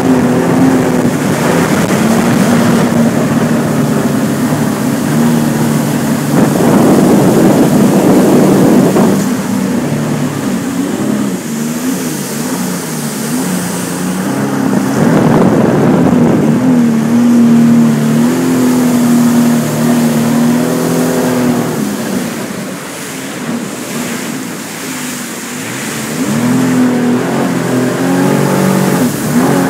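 2012 Sea-Doo RXP-X personal watercraft's engine running and revving up and down, with surges of rushing noise at about 7 and 15 seconds in and a quieter stretch near the end.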